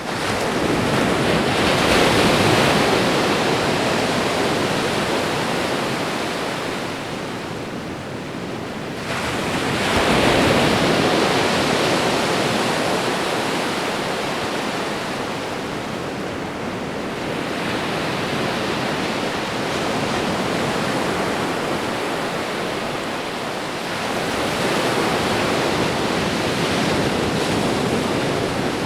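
Ocean waves breaking on a shore, one after another: the wash swells about four times, every six to eight seconds, and ebbs between, with a steady hiss underneath.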